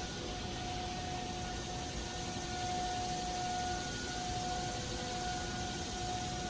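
Distant outdoor warning siren holding one steady tone, with wind rumbling on the microphone and a shrill haze of cicadas.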